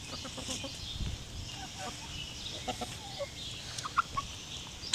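Chickens clucking in short, quiet calls as they feed, with a few sharp ticks.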